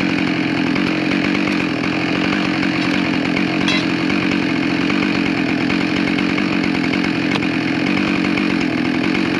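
Two-stroke chainsaw engine running steadily at an even speed, with no cutting and no revving.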